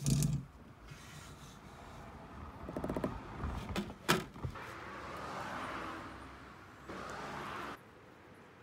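Handling noise as wire line is pushed through a windshield's bead with a hand push tool: a knock at the start, a rattling scrape about three seconds in and sharp clicks about four seconds in, with a steady hiss that cuts off suddenly near the end.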